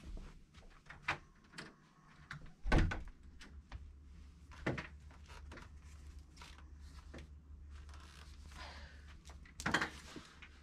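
A house front door being unlatched and opened, heard as a few clicks and knocks, the loudest thud about three seconds in. Near the end comes a burst of handling noise as a flat cardboard box is picked up.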